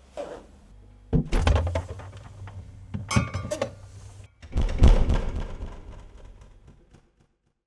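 A jacket zip pulled up, then a run of heavy thuds and knocks in a small room, ending in one loud thump that dies away.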